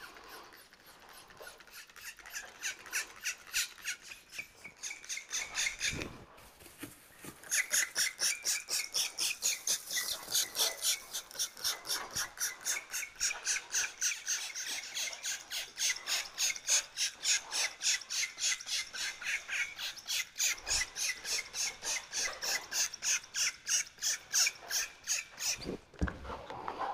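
Masking tape and plastic being pulled and rubbed down in a quick run of short rasping strokes, about four a second, with a brief pause about six seconds in.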